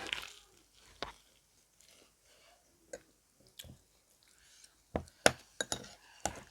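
Close-up eating sounds: a person chewing chole bhature, the crisp-crusted fried bhatura bread, with scattered short sharp mouth clicks and smacks that come more often in the last couple of seconds.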